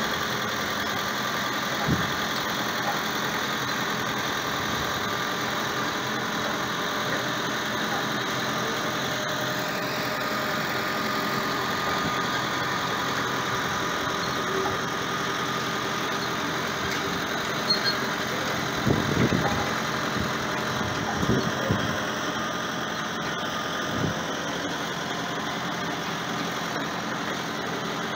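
Tractor engine running steadily at low revs as it tows a sailboat on a wheeled cradle, with a few short low thumps, the loudest a cluster about 19 to 22 seconds in.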